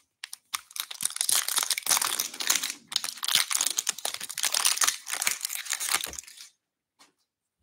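Wrapper of a 2022 Bowman Draft baseball card pack crinkling and crackling as it is handled and opened by hand. The crackle starts about half a second in and stops abruptly about six and a half seconds in.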